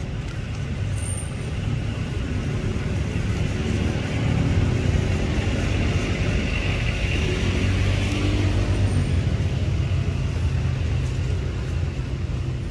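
Low rumble of a motor vehicle engine, swelling through the middle and easing near the end, with a steady high hiss above it.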